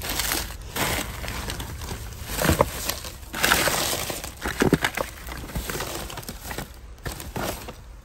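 Plastic trash bags and packaging rustling and crinkling as a gloved hand rummages through them, with irregular crackles and small knocks of items being shifted.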